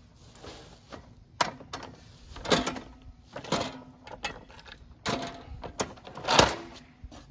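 A string of clunks and knocks, about seven separate hits spread over several seconds, as tools and equipment are handled in a work truck.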